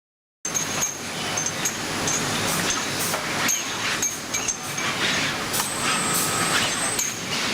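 Production-line machine noise from an automated crack and grinder-burn test station for steel bearing rings. It starts abruptly about half a second in, then runs steadily, with repeated metallic clinks as the rings are handled and a few brief high beeps.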